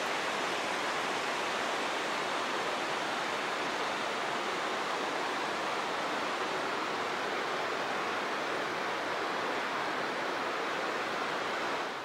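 River water rushing over rocks in a gorge, a steady, even rush; it drops abruptly quieter near the end.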